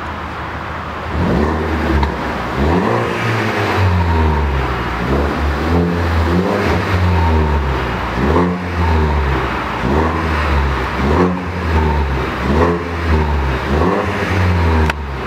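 Ford Focus ST's turbocharged 2.0-litre four-cylinder, parked, revved again and again to about 3,000 rpm from about a second in. Each blip rises and falls in pitch, roughly every second and a half. The aftermarket exhaust gives a throaty note.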